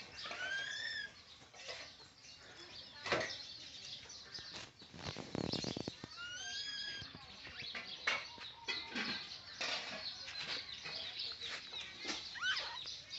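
Baby monkey giving short arched squeaks, one about half a second in and another about six seconds in, with a falling squeak near the end. Between them come a few sharp knocks and rattles of the woven bamboo basket as the monkeys tip and roll it, with small high bird chirps in the background.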